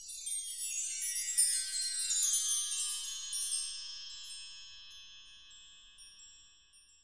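A cascade of high chime tones stepping down in pitch, like a sweep across bar chimes, then ringing on and fading away.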